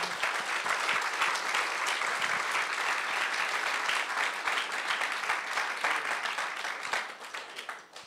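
Audience applauding: dense clapping that thins and dies away near the end.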